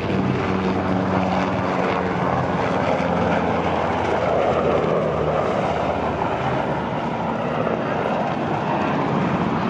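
Sikorsky CH-148 Cyclone twin-turbine helicopter passing by: rotor and engine noise with a steady low hum that fades about halfway through, leaving a rushing sound.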